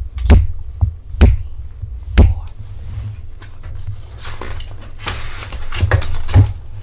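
A few sharp clicks or taps, then a soft rustle of paper with a couple of knocks as a page of a picture book is turned.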